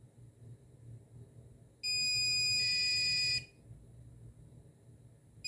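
Multimeter continuity-test beep: one steady high-pitched tone of about a second and a half, then another starting near the end, showing the probed capacitor pins are connected, i.e. the two capacitors are in parallel.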